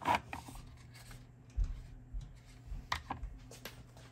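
A last rasping stroke from the 3D-printed chuck's thumb wheel being turned by hand, its plastic gears rubbing, ends the run of strokes right at the start. After that come only a few faint knocks and clicks from hands on the bench.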